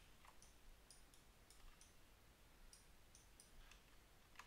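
Near silence with about ten faint, short, irregularly spaced clicks of a computer mouse.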